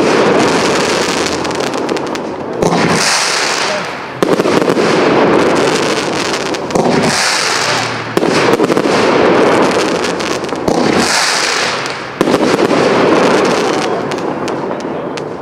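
Aerial firework shells bursting one after another, about six in all, every two seconds or so. Each begins with a sudden bang followed by dense crackling that fades away before the next burst.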